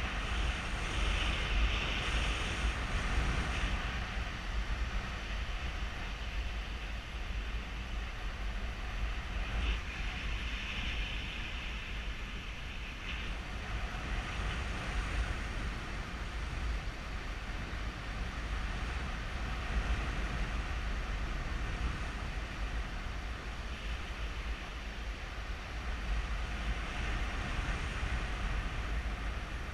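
Wind rushing over a GoPro camera's microphone in paraglider flight, a steady low rumble with gusts that swell and fade.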